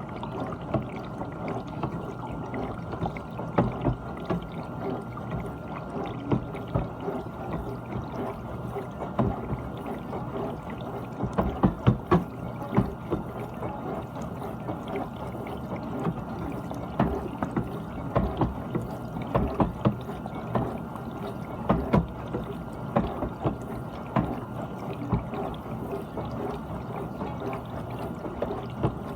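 GE dishwasher running its wash cycle: water spraying and splashing inside the tub over a steady pump hum, with irregular knocks and splats.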